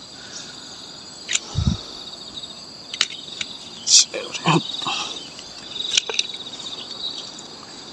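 Steady, rapidly pulsing chirring of forest insects, with scattered knocks, clicks and a low thud from someone climbing up through a large durian tree.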